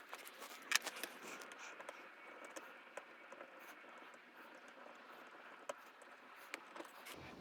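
Faint, scattered clicks and light scrapes of a hand tool working on metal fittings, the sharpest click about a second in.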